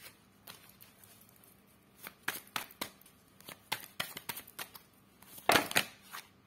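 A deck of oracle cards being shuffled by hand: a run of quick papery flicks and taps, sparse at first and thicker after about two seconds, with the loudest flurry near the end.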